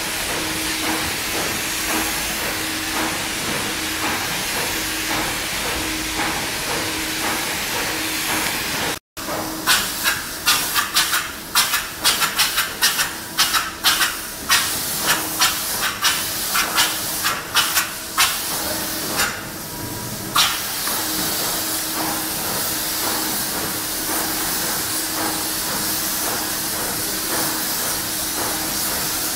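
Polyurea spray gun hissing as it atomises coating onto a truck bed liner, with a low pulsing hum underneath. About nine seconds in the sound cuts out for an instant. A rapid series of sharp, loud bursts follows for about ten seconds before the steady hiss returns.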